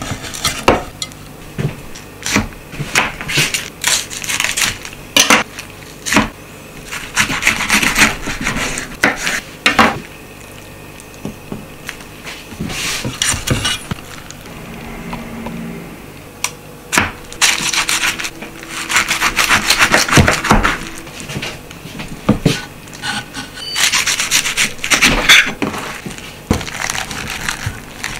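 Raw napa cabbage and pork belly stacks being pressed by hand into an aluminium pot: leaves rubbing and rustling against each other and the pot wall in repeated spells, with sharp clicks among them and a quieter stretch midway.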